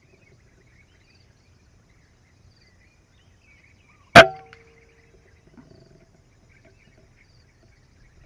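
A single air rifle shot: one sharp crack about four seconds in, with a brief metallic ring after it. Faint bird chirps can be heard in the background.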